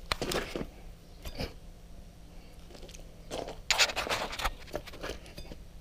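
Shoes crunching and scraping on loose gravel in a few uneven steps, the loudest crunches about three and a half to four and a half seconds in.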